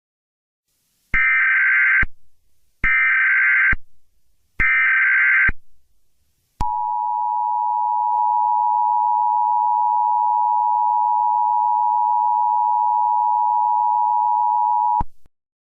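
Emergency Alert System header: three short bursts of digital data screech, each about a second long, then the EAS two-tone attention signal held steady for about eight seconds before cutting off sharply.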